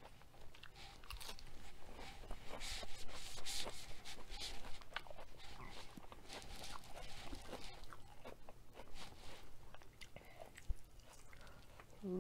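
Close-up chewing of a mouthful of crisp lettuce: a run of small, irregular wet crunches and mouth clicks.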